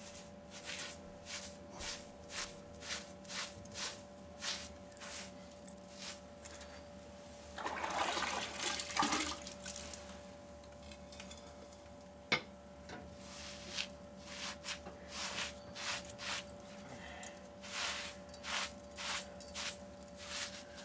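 Wet sponge wiping fresh mortar around a cast-iron chimney clean-out door, in quick strokes about two a second, with a longer wet squish of water about 8 seconds in and a single sharp knock a little after halfway.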